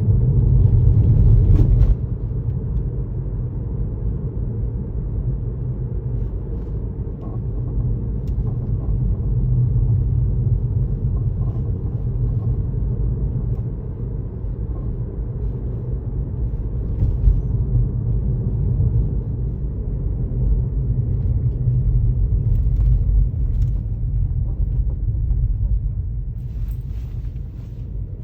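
Tesla Model 3 on the move: a steady low road and tyre rumble that swells and eases, with a few faint short clicks now and then.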